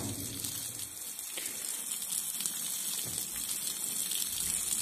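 Stream of water splashing steadily onto loose soil and dry straw, watering a freshly planted mushroom bed.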